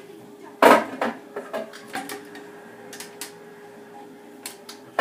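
Kitchen containers and dishes being handled and set down: one loud knock under a second in, then a run of lighter clicks and taps.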